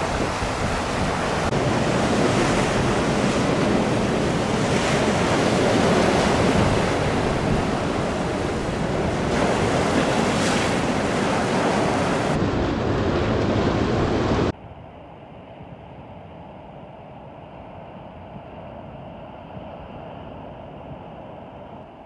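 Ocean surf breaking over a shallow rocky reef, with wind buffeting the microphone, loud and rough. About fourteen seconds in it cuts abruptly to a much quieter, steady wash of surf.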